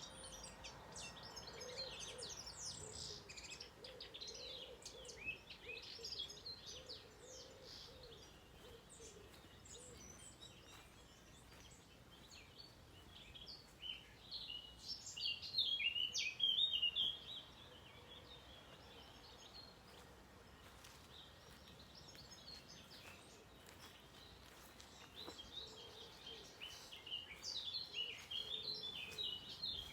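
Small songbirds chirping: many short, overlapping high chirps throughout, with a louder dense flurry about halfway through and another near the end.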